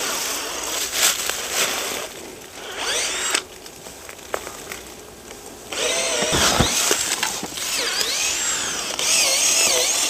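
Cordless drill boring into a tree trunk, the motor's pitch shifting as the bit bites into the wood. It stops briefly about a third of the way in, then starts drilling again.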